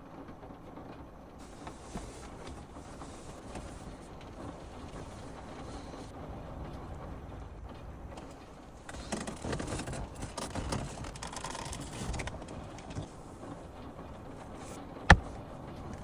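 Rain falling on a car, a steady hiss that grows louder for a few seconds midway, with one sharp click about fifteen seconds in.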